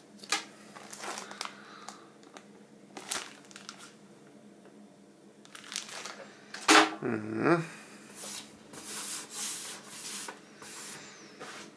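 Unpacking and handling noises: light clicks and rustles, a loud knock about seven seconds in, then several seconds of rubbing and rustling as the Blu-ray player comes out of its packaging and is laid on the table.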